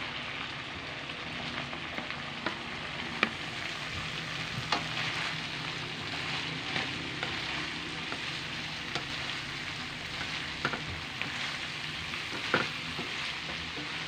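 Meat and green beans sizzling in a hot metal wok as they are stir-fried with a wooden spatula. The steady sizzle is broken by a few sharp knocks of the spatula against the wok, the loudest near the end.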